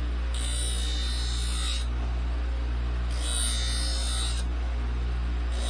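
Knife blade dragged across a spinning paper sharpening wheel coated in silicon carbide grit: two hissing grinding passes of about a second and a half each, a third starting at the very end, over the steady hum of the motor driving the wheel.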